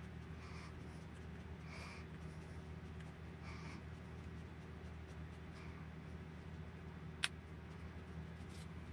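Faint soft scratching every second or so, with one sharp click about seven seconds in, over a steady low hum: small hand-tool work, a hex driver turning a grub screw into an RC car's shock-mount piece.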